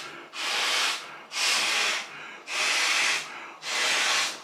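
A Trekology Aluft 2.0 TPU camping pillow being blown up by mouth through its push-button valve: four long breaths of rushing air, about one a second, with short gaps between.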